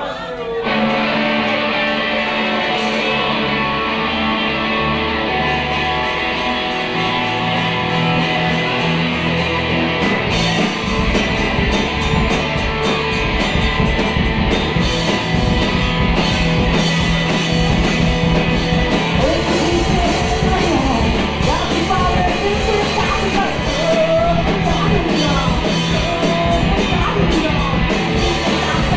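Rock music with guitar: held chords at first, then a steady drum beat comes in about ten seconds in and the band plays on.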